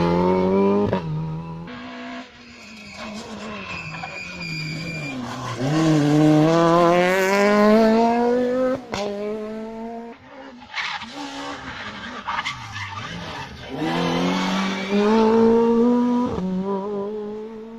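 Rally car engines at full throttle. The pitch climbs in three long runs and falls sharply each time the throttle is lifted, with a sharp pop at each drop.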